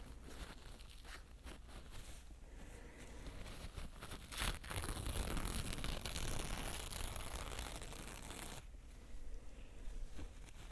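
Close-miked ASMR scratching and rubbing noises, dry and rasping, growing louder a few seconds in and easing off near the end.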